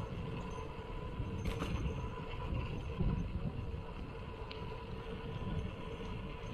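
Riding noise of a 26-inch mountain bike rolling along a concrete road: a steady low rumble from the tyres, with one sharp click about a second and a half in.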